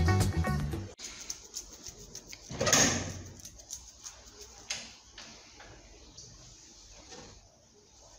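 Upbeat background music that cuts off about a second in, followed by quiet room sounds of someone moving about: a brief swishing noise a little under three seconds in and a few light knocks and clicks.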